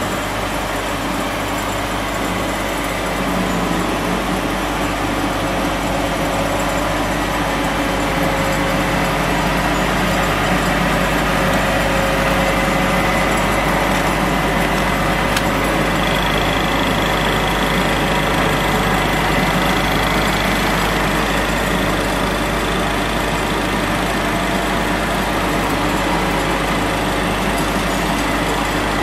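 Hempel PD 90 automatic round-stick sanding machine running, a steady mechanical hum and whir from its spindle drive and sanding brushes. It gets a little louder a few seconds in, and a faint high whine joins about halfway through.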